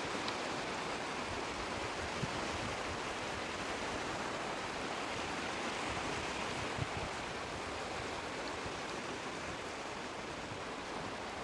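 Steady wash of sea waves on a shore, an even rushing noise with a few faint knocks.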